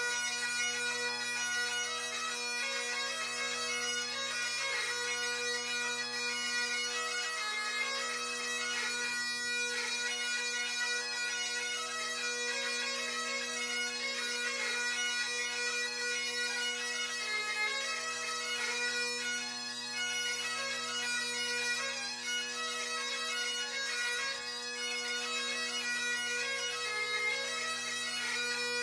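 Two Great Highland bagpipes playing a tune together, the chanter melody moving over their steady, unbroken drones.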